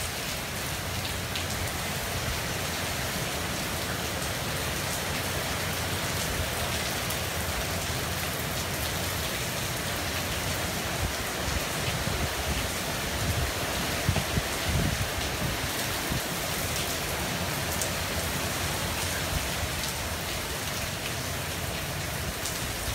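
Heavy hurricane rain pouring steadily onto a pool, its deck and a lake, a dense even hiss. Low rumbling wind gusts come and go, strongest about halfway through.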